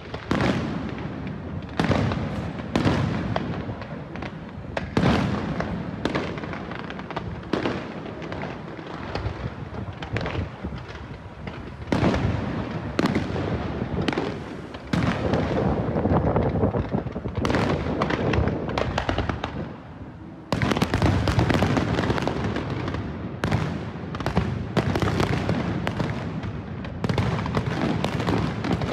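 Fireworks display going off: a steady string of sharp bangs and pops with crackling, growing denser and louder about two-thirds of the way through.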